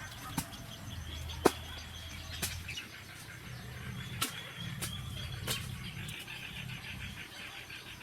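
A handful of sharp knocks or taps at irregular intervals, the loudest about one and a half seconds in, over a low steady hum and faint high chirping.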